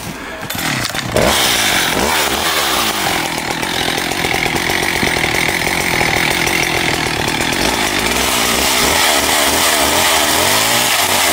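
Two-stroke chainsaw running at high revs, cutting into a felled spruce. It comes up to full speed about a second in, and its pitch dips and rises several times near the end.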